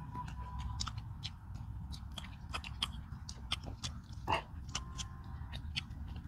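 People eating rice and fish with their hands, with chewing and many small wet clicks and smacks, one a little louder about four seconds in, over a steady low hum.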